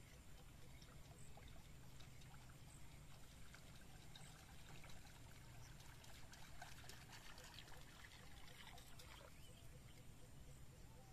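Near silence: faint water splashing and trickling from a topwater lure skittering across the surface of still swamp water during the retrieve.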